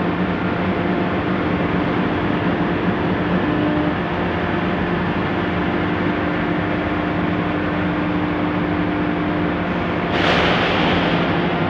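Heavy-plate cut-to-length line running: a steady drone from its electric geared drive motors and cardan-shaft-driven levelling rolls, with several steady tones. About ten seconds in a louder rushing noise rises over it for over a second.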